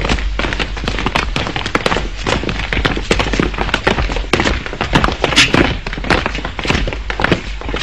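A dense, irregular run of sharp cracks and pops, several a second, with no let-up.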